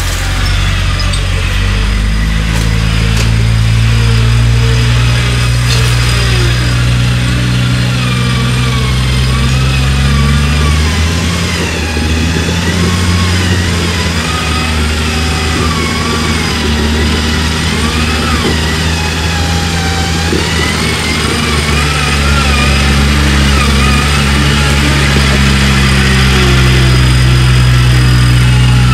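Off-road 4x4's engine running steadily under load, its pitch rising a couple of seconds in, dropping about ten seconds in, and rising again after about twenty seconds.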